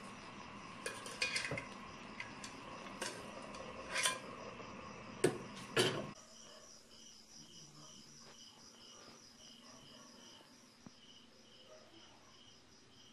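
A metal utensil clinks and scrapes against a metal wok of simmering bottle gourd and pork, over a steady cooking hiss, ending in two louder clanks as a metal lid goes on. About six seconds in, this gives way to crickets chirping in an even, pulsing rhythm.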